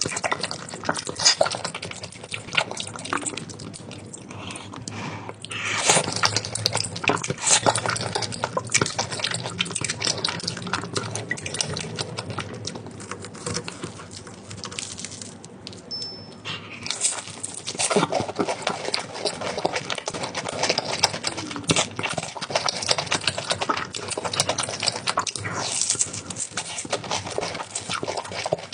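Close-miked eating sounds: wet chewing and mouth smacking of cheese tteokbokki and corn dog, a dense run of small irregular clicks.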